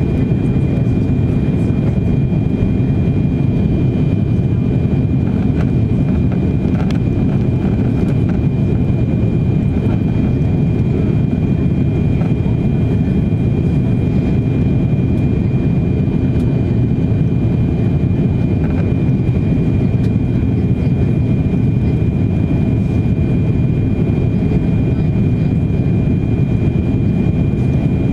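Airbus A340-600 cabin noise heard from a window seat by the wing on descent: a steady, dense low rumble of airflow and its four jet engines, with a faint steady high whine over it.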